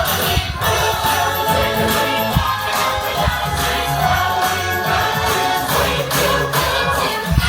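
Music with singing voices, choir-like, over a steady beat.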